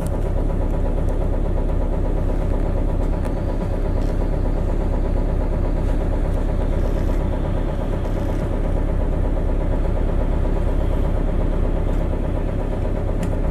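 City bus engine idling steadily while the bus waits at a stop, heard from inside the passenger cabin.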